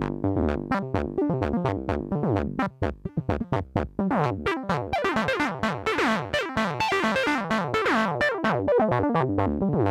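Twisted Electrons Acid8 MKII 8-bit acid synthesizer playing a fast sequence of short notes, with envelope modulation applied to pitch so that each note drops quickly in pitch. The tone turns brighter about four seconds in.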